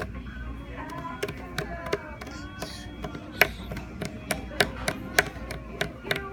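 A toddler's hands slapping and tapping on a wood-grain tabletop, making beats as irregular taps, a few a second.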